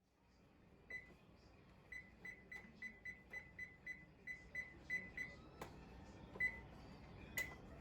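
About a dozen short, high electronic beeps from a kitchen appliance's keypad, coming a few a second at slightly uneven spacing as buttons are pressed, with a couple of sharp clicks near the end.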